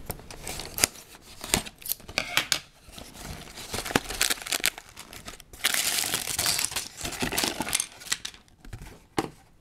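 Scissors snipping the tape seal of a small cardboard LEGO box, with a few sharp clicks, then the cardboard flaps being pulled open and the plastic parts bags crinkling and rustling as the contents come out, loudest in a long rustle a little past halfway.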